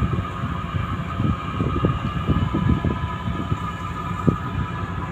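Steady machinery drone with several held, high whining tones, under irregular low rumbling of wind buffeting the microphone; a single bump about four seconds in.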